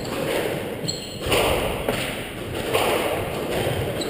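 Squash rally: the ball cracks off the rackets and thuds against the court walls, each hit echoing around the enclosed court.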